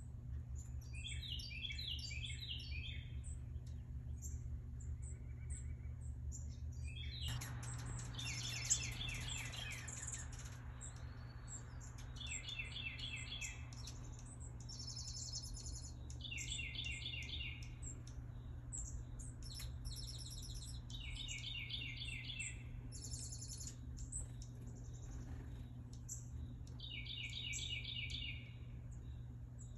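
Songbirds singing: a trill of rapid repeated notes, each phrase about two seconds long, recurring every four to five seconds, with higher, thinner calls from another bird in between, over a steady low hum.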